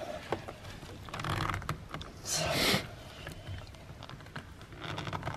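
Light clicking and rattling of hand tools and parts as an aftermarket steering wheel is fitted to a truck's steering column, with a short rustling hiss about two and a half seconds in.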